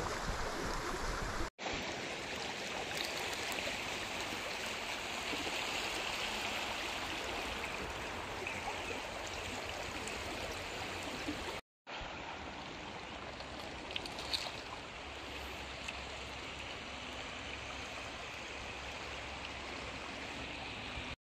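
A shallow river running over gravel riffles: a steady rush of flowing water. It cuts out briefly twice, about a second and a half in and again near twelve seconds.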